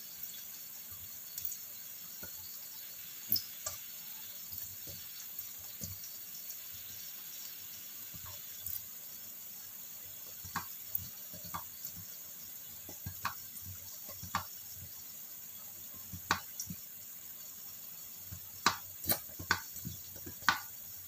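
Wok of chicken feet simmering in sauce with a steady hiss and scattered sharp pops and clicks. The last of a nearly empty plastic bottle of sweet soy sauce is squeezed in, and the pops come louder and closer together near the end.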